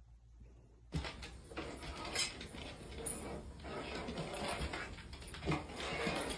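Near silence for about a second, then irregular light clicks, knocks and scuffling on an OSB wood subfloor, as a spirit level is handled and a puppy scrambles around it.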